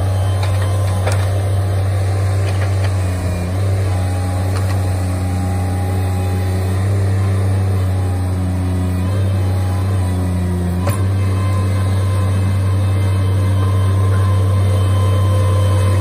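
Bobcat stand-on mini track loader running steadily while it lifts and carries a large log in its grapple: a loud low engine drone whose tone shifts a few times as the loader works, with one sharp click late on.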